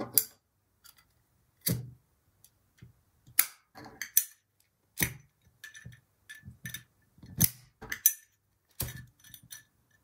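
Windproof Zippo-style lighters handled in flip tricks: a series of sharp, separate metallic clicks and clinks as the hinged lids snap open and shut and the lighter cases knock on the table.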